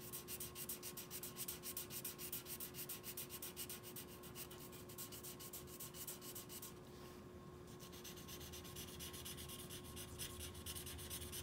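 A marker scribbling on paper as a black area is coloured in, with quick back-and-forth strokes about five or six a second. The strokes pause briefly a little past halfway, then resume.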